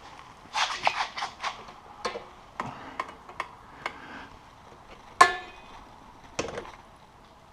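Metal tools and parts clinking and clicking during hand work. A quick cluster of clicks comes about a second in, and a louder clank that rings briefly comes about five seconds in.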